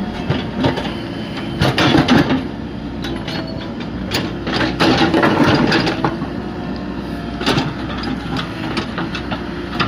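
JCB excavator's diesel engine running steadily under load, with repeated clattering knocks and scrapes as the bucket works through a cement mix.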